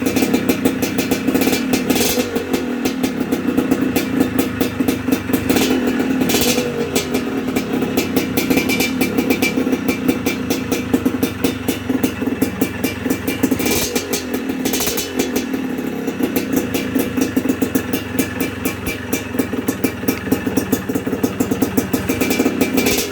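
Yamaha DT125 two-stroke single, fitted with a Boyesen reed valve, running steadily with a rapid stream of exhaust pulses. The throttle is blipped briefly several times, about two seconds in, around six seconds, twice near the middle and again near the end.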